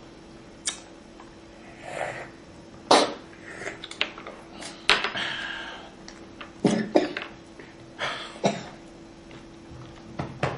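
A small child's short coughs and throat-clearing sounds, several of them a second or two apart, over a faint steady hum.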